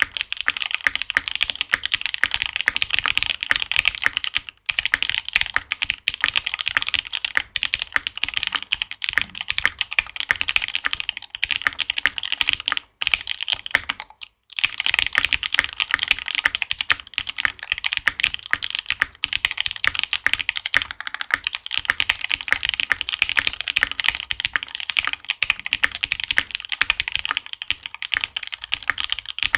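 Monokei Kei R2 custom mechanical keyboard with lubed switches being typed on quickly and continuously: a dense stream of clacky keystrokes, broken by short pauses about 4.5, 13 and 14.5 seconds in.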